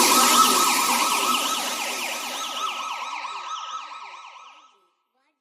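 Police siren sound effect in a fast yelp, its pitch sweeping up and down several times a second over a steady high tone. It fades out and stops about four and a half seconds in.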